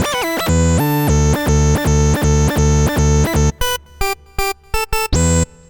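Casio CZ-style phase-distortion synthesizer patch from UVI Cameo CZ playing a riff. It starts with a run of evenly repeated, bass-heavy notes. About three and a half seconds in, these give way to shorter, separated stabs, and the last one cuts off and fades near the end.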